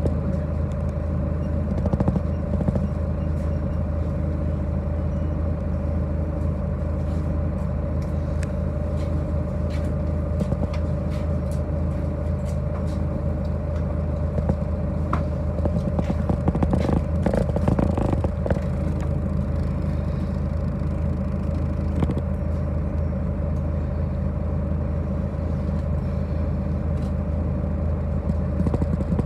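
City bus driving, heard from inside the passenger cabin: the engine's steady drone with the rattling and clatter of the body and fittings, heavier rattling for a few seconds a little past the middle.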